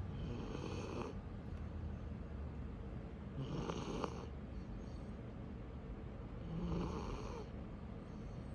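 Snoring in sleep: three snores at an even pace, about three seconds apart.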